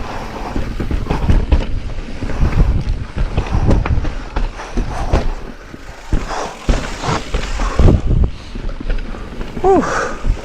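Wind buffeting the microphone over the knocks and rattle of a mountain bike riding rough trail, uneven and loud throughout. A short pitched sound bends up and down near the end.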